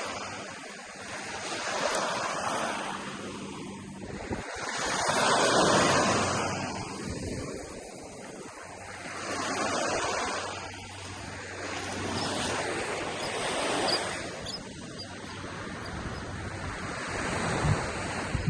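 Ocean surf breaking on a beach, the wash swelling and fading in waves about every four seconds. A couple of short low thumps of wind on the microphone near the end.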